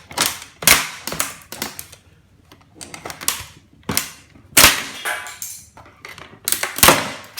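A series of sharp, irregular knocks and cracks as the brittle old plastic casing of a vintage electric typewriter is forced and struck to break it apart. The loudest hits come in the second half.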